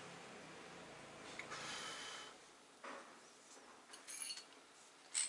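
Faint handling sounds of work on a nitro RC car: a low steady hum fades out about two seconds in, then light metallic clinks of small tools or parts being picked up from the concrete floor, around four seconds in and again just before the end.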